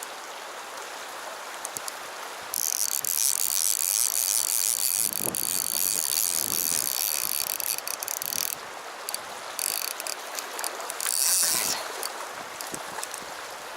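Fly reel's click-and-pawl drag buzzing as line runs through it: one long run of about six seconds, then a shorter one near the end.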